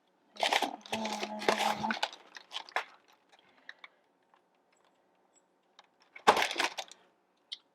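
Crinkling and rustling of frozen-treat packaging being handled, in two bursts: one about half a second in, lasting over a second with a few light ticks after it, and another near the end.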